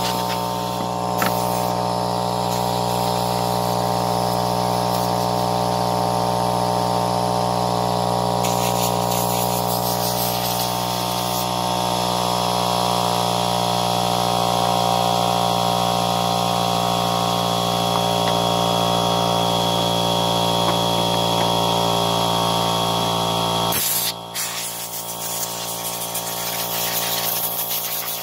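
Air compressor running with a steady mechanical hum, while a blow gun gives bursts of hissing compressed air to blow dirt off a chainsaw. About 24 seconds in, the compressor's low hum cuts out and the level drops, though a fainter machine tone carries on.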